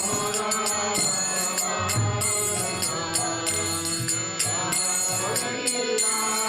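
Devotional kirtan music: small hand cymbals (kartals) jingling and ringing over a sustained instrumental drone.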